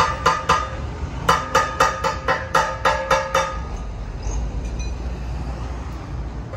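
Steel being struck with a hammer in rapid strokes, about four blows a second, each blow ringing with a metallic tone. The hammering pauses briefly, runs again for about two seconds, then stops, leaving a low steady rumble.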